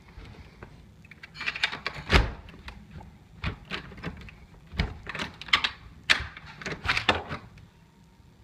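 Irregular clicks and knocks of a panelled door being handled and opened, the loudest about two seconds in.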